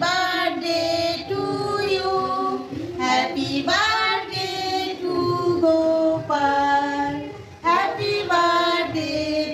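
Two women singing together without accompaniment, holding drawn-out notes.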